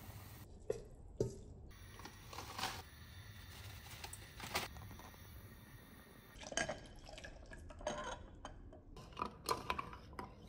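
Scattered light clinks and taps of glassware and dishes being handled, with faint liquid sounds.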